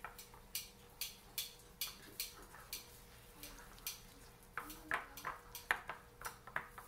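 Silicone spatula stirring a thick spice-and-oil marinade in a ceramic bowl: short scrapes and clicks, about two or three a second, as it sweeps round the bowl.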